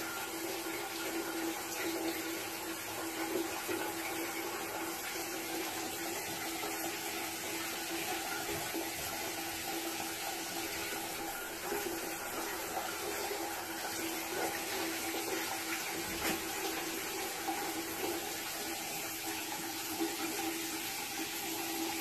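Shower running steadily, water falling onto a tiled shower floor in a small stall.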